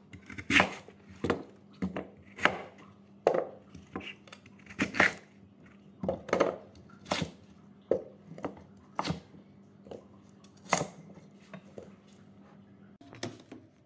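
Cleaver slicing through lotus root onto a wooden chopping board: a steady run of chops, each stroke ending in a sharp knock on the board, a little more than one a second, with a short pause near the end before two more cuts.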